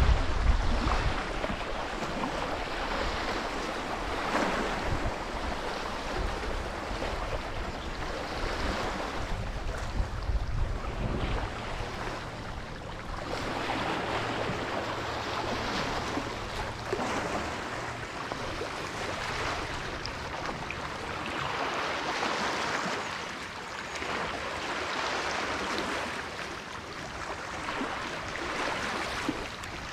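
Rain and wind at a jetty, with a rushing noise that swells and fades every few seconds like water washing in. A low thunder rumble underneath, loudest right at the start, dies away about eleven seconds in.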